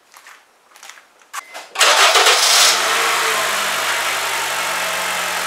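A 2007 Honda Fit's 1.5-litre four-cylinder engine being started: a few light clicks and knocks, then about two seconds in a brief loud burst of cranking as it catches, settling into a steady idle.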